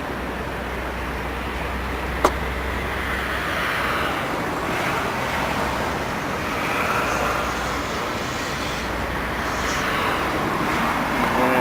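Steady road-traffic noise with slow swells as vehicles pass, and a single sharp click about two seconds in.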